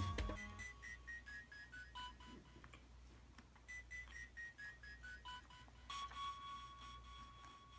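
A faint electronic tune of pure beep-like notes stepping down in pitch, played twice, followed by one held note near the end.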